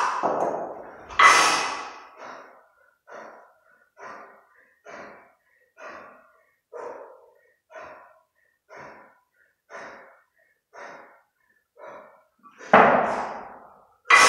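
Kettlebell lifter's hard rhythmic breathing, short breaths about two a second, while he holds two 32 kg kettlebells in the rack during a long-cycle set. Louder, sharper bursts come as the bells are cleaned to the chest about a second in and as they are driven overhead near the end.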